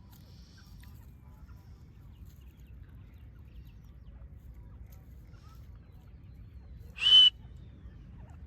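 A Dakhni teetar (grey francolin) gives one short, loud call about seven seconds in, over a low steady hum.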